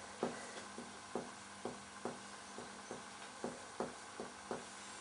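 Mediate (finger-on-finger) percussion of the chest: about a dozen light, faint taps, two to three a second, as the examiner percusses toward the apex to find the left border of relative cardiac dullness.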